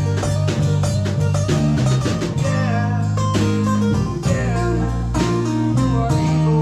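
Acoustic guitar strumming a song's instrumental close, quick strokes ending on a final chord that is held and rings out near the end.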